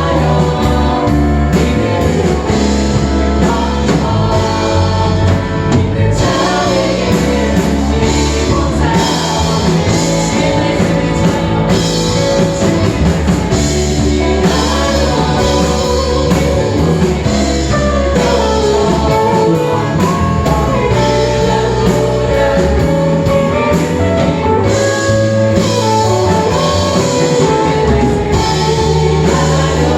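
Praise team singing a gospel worship song with band accompaniment.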